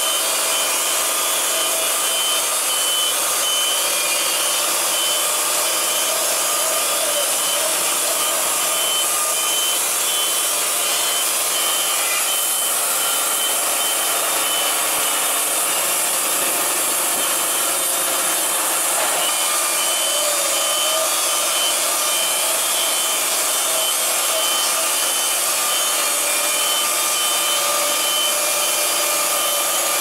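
Wood-Mizer LT40 Wide portable band sawmill running steadily, its band blade cutting lengthwise through a log as the saw head travels along it.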